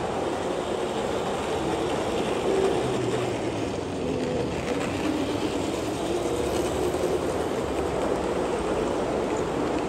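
Gauge 1 model train running on the layout's track: an electric locomotive hauling passenger coaches, a steady rumble of wheels on rails with a faint motor hum.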